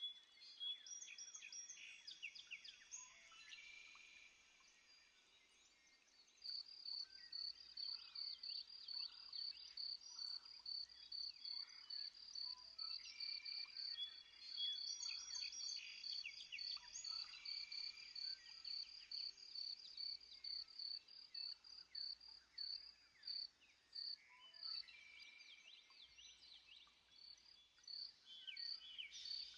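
Faint outdoor birdsong of quick, falling chirps, with a steady high-pitched pulsing chirp repeating about three times a second through most of the middle.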